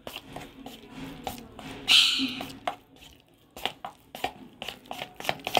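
Spoon stirring thick besan batter in a steel bowl: wet slapping, with the spoon clicking and scraping against the metal. A brief louder rasp comes about two seconds in, and the clicks get quicker near the end.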